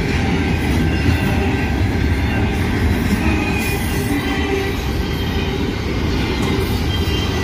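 Double-stack intermodal container well cars of a freight train rolling past, a steady loud rumble of steel wheels on the rails.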